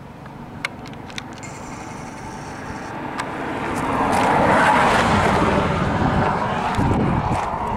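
A road vehicle passing by: tyre and engine noise that swells to its loudest about halfway through and then fades, with a low rumble near the end.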